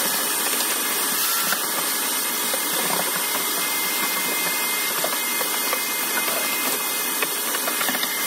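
Vacuum cleaner running steadily with a thin whine, with scattered small clicks as debris is sucked up.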